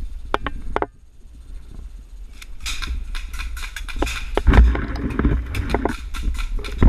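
Irregular clicks and knocks with a low rumble, going quieter about a second in, then a dense run of clicks and heavy thumps from about two and a half seconds.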